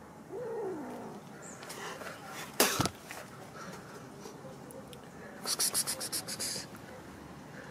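Kitten gives a short mew, then spits once, sharp and loud, about two and a half seconds in. Near the end it hisses in a rapid stuttering run lasting about a second: defensive sounds of a frightened kitten.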